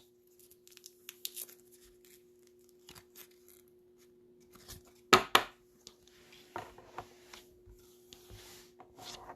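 Trading-card packaging being handled: crinkling and tearing of a wrapper and plastic, with scattered light clicks and two sharp clicks a little after five seconds in. A faint steady hum runs underneath.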